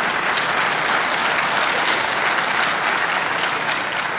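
Audience applauding: a dense, steady clatter of many hands clapping that eases slightly near the end.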